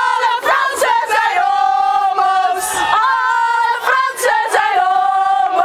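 A crowd of voices singing and chanting loudly together, with long held notes.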